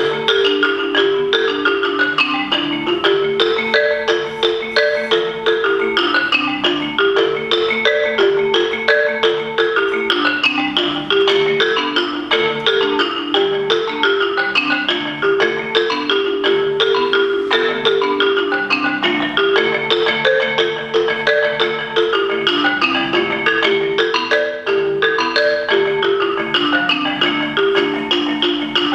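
Solo marimba played with mallets: a continuous stream of quick struck notes, moving up and down in repeating patterns.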